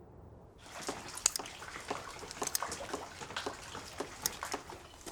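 Water splashing and dripping in irregular small splashes, starting about a second in.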